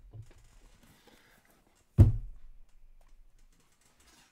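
A single sharp thump, as of something set down on a table, about two seconds in, amid faint handling ticks and rustles.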